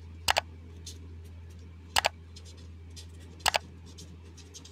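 Three computer mouse-click sound effects, each a quick double click, about a second and a half apart, over faint scratching of a marker pen writing on paper and a steady low hum.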